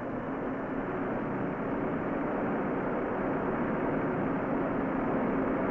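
Steady mechanical running noise with a faint low hum, slowly growing louder, from a railway bogie carrying a precast concrete bridge segment along the track.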